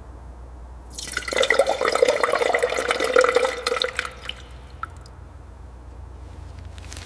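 Water splashing and dripping for about three seconds, then fading away over a low steady hum.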